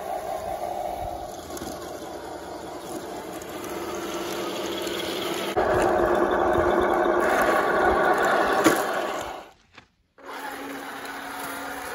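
Heng Long 1:16 radio-controlled Tiger tank driving, its small electric drive motors and gearboxes making a steady whirring drone. It gets louder about halfway through and breaks off briefly near the end, then comes back as a steadier, lower hum.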